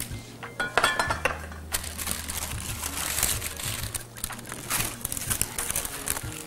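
Parchment paper rustling and crinkling as cold zucchini slices are tipped off it into a glass bowl, with light clinks against the glass.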